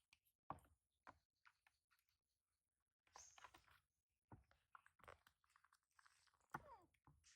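Faint, irregular clicks and small crackling sounds, a few sharper ticks among them, with a short falling squeaky sound near the end.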